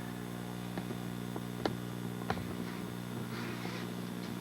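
Steady low electrical hum, with two faint clicks partway through.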